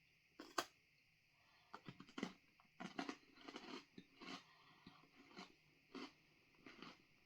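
Faint close-up chewing of a crunchy freeze-dried ice cream sandwich with wafers: a sharp click about half a second in, then repeated crunching chews, roughly one or two a second.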